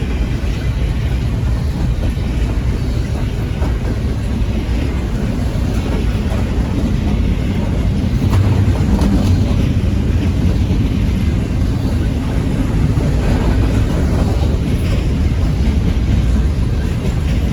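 Long Norfolk Southern intermodal freight train rolling past slowly: a steady low rumble of cars and wheels on the rails.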